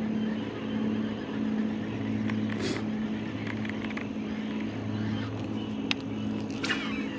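A steady low motor hum that swells and fades every second or so, with a few short sharp clicks over it.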